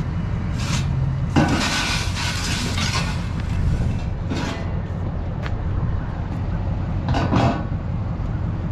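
Metal clanking and scraping in a few short bursts, the longest lasting about two seconds, as the bent trailer ramps are handled, over a steady low engine rumble.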